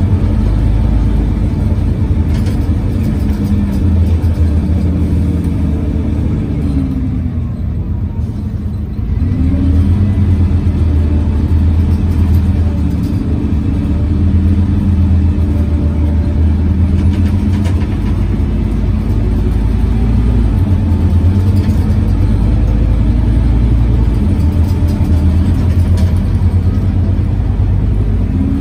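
Scania OmniCity city bus under way, heard from a passenger seat: its loud engine cooling fan all but covers the engine, together with the whine of the ZF Ecomat automatic gearbox. The pitch sinks as the bus eases off about a quarter of the way in, then rises again as it pulls away, and rises once more near the end.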